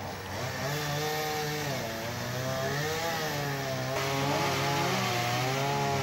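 Chainsaw engine running under changing throttle, its pitch rising and falling repeatedly.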